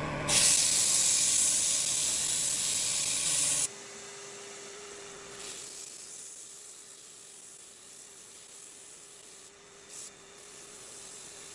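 80-grit sandpaper held against a cork rod grip spinning on a mini lathe: a loud steady sanding hiss that cuts off abruptly a few seconds in, leaving a much quieter hiss over the lathe's steady motor hum.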